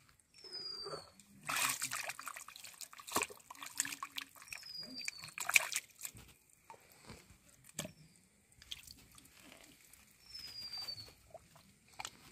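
A hand and arm groping in a muddy waterhole, squelching and sloshing through mud and water. The splashing is loudest about a second and a half in and again near six seconds. A bird's short, falling whistle repeats three times over it.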